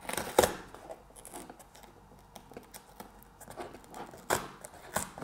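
Perforated tear strip on a cardboard box being pulled open slowly by hand: faint cardboard tearing and crackling, with a sharp rip about half a second in and two more near the end.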